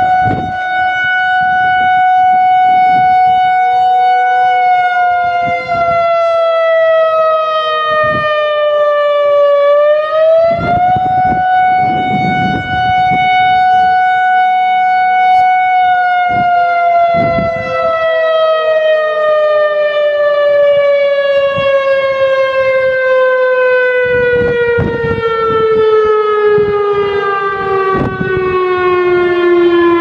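ASC i-FORCE 1600 electronic outdoor warning siren sounding its attack signal: a loud wail that rises, holds and sags, twice, then about halfway through stops cycling and winds down in one long, slow falling tone as the signal ends.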